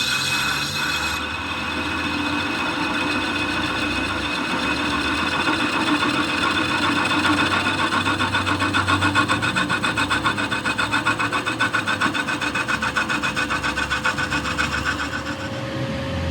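Workshop machine working a steel truck spring (jhula) pin: a steady motor hum under a continuous rasping scrape of metal being cut, which settles into a fast pulsing rhythm of several beats a second about six seconds in.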